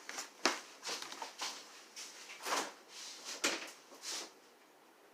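Handling noises: about eight short knocks, clicks and scuffles as things are moved about, with the sharpest knocks about half a second and three and a half seconds in.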